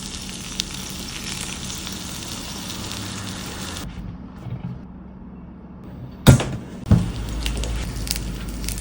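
Takoyaki batter sizzling and frying in a hot takoyaki pan, a steady hiss that cuts off abruptly about four seconds in. After a quieter stretch come two loud knocks about half a second apart, followed by a low rumble.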